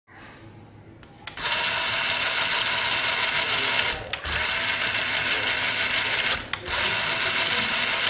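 Small DC gear motors of a homemade RC car running, driving its wheels. The noise starts about a second in and breaks off briefly twice, about four and six and a half seconds in.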